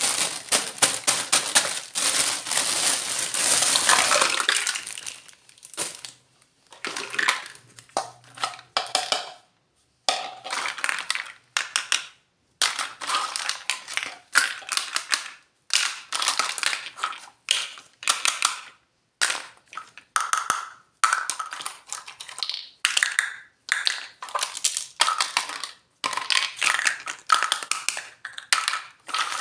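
Crinkling and crackling of plastic packaging as a miniature toy kitchen set is unboxed: a dense stretch of crackling over the first few seconds, then short bursts of crinkles and small clicks with brief pauses between them.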